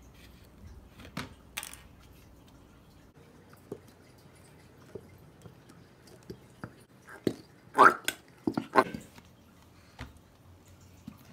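Plastic bottle of PVA glue being handled and squeezed as the glue pours into a plastic tub: scattered light clicks and taps, then, about seven seconds in, a short run of loud squelching sputters as air forces through the thick glue at the end of the pour.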